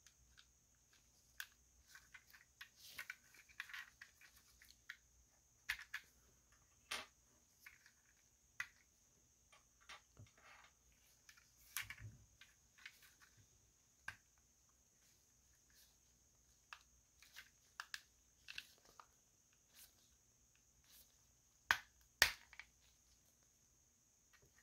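Small plastic clicks and snaps from a Transformers Studio Series 86 Ratchet action figure as its parts are handled and moved, with short bouts of rubbing; the loudest two clicks come close together near the end.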